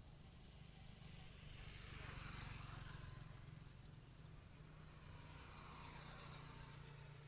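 Faint distant traffic: a low steady hum with a hiss that swells and fades twice as vehicles pass.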